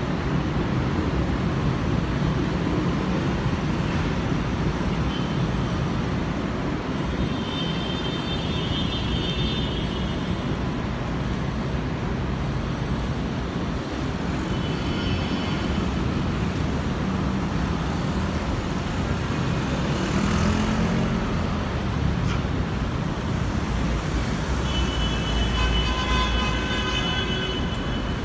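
City street traffic noise from passing cars, a steady wash of road noise. Brief high-pitched tones rise above it about eight seconds in, again around fifteen seconds, and near the end.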